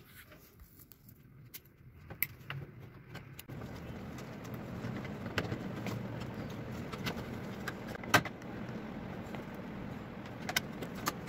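Sharp clicks and light metallic rattles from handling a washing machine's control circuit board, its wiring connectors and a screwdriver working on the board's sheet-metal cover, as the board is refitted. The clicks come every second or two, over a steady low background noise that sets in about three and a half seconds in.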